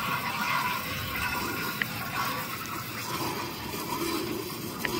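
Milk squirting in streams from a cow's teats into a steel bucket during hand-milking, a steady splashing. Two short ticks sound, about two seconds in and near the end.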